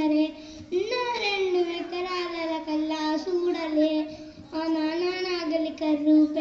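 A young boy singing into a handheld microphone, holding long notes with a slight waver, with a short breath pause near the start before a note that slides up into place.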